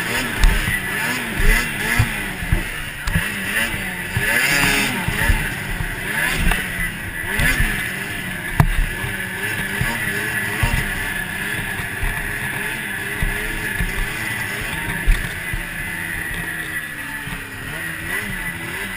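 2006 Ski-Doo MXZ 440 two-stroke snowmobile engine revving up and down hard under race throttle, heard from the rider's helmet, with frequent knocks and thumps.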